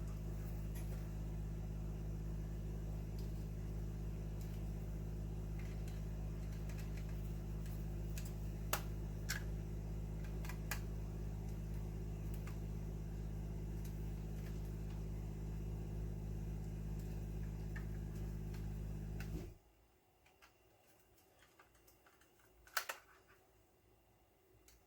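Steady mechanical hum, like a fan or small motor running, with a few light clicks over it. The hum cuts off suddenly a few seconds before the end, leaving near silence broken by one sharp click.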